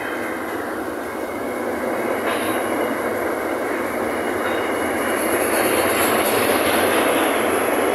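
Freight train's louvred box wagons rolling past close by: a steady rumble of steel wheels on rails with a thin, high-pitched wheel squeal above it, growing a little louder toward the end.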